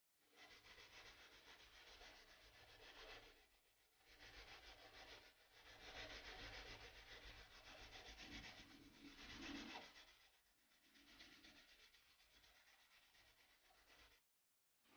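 Wooden axe handle being hand-sanded just below the head, a strip of sandpaper pulled back and forth around it shoe-shine fashion in quick strokes. A faint, steady rasping that eases off twice and cuts off suddenly near the end.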